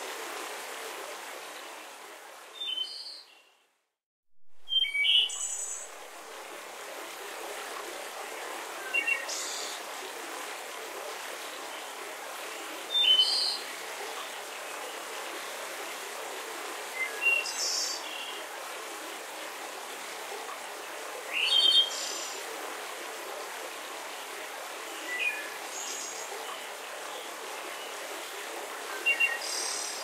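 Waterfall rushing steadily, with birds chirping in short calls every few seconds over it. The whole sound cuts out for about a second, around four seconds in, then returns.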